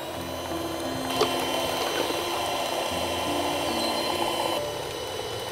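Handheld electric mixer running with a steady high whine as its beaters whip cream in a bowl, easing slightly near the end.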